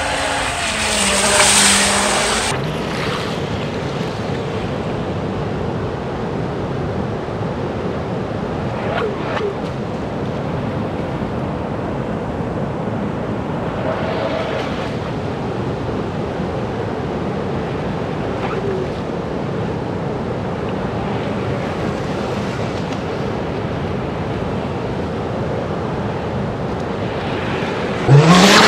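Steady rush of river water over rapids. At the start, the RC jet boat's electric motor whines and its spray hisses briefly. Near the end comes a short, loud rising sound.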